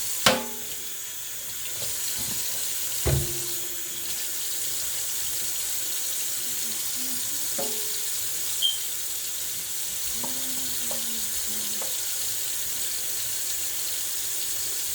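Tap water running steadily into a sink as ginger root is washed under it, with three brief knocks or clinks against the sink, the first and loudest right at the start.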